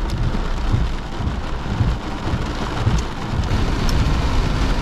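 Heavy storm rain falling on a car's roof and windscreen, heard from inside the cabin, over a steady low rumble.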